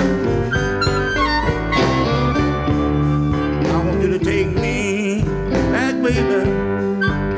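Electric blues band playing live, with a harmonica soloing over piano, guitar, bass and drums; the high notes waver and bend about midway through.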